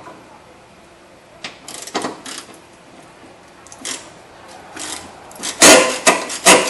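Ratchet with a long extension working a battery-tray bolt: scattered metal clicks, then a burst of loud metallic clacking and rattling near the end as the tool is worked and pulled free.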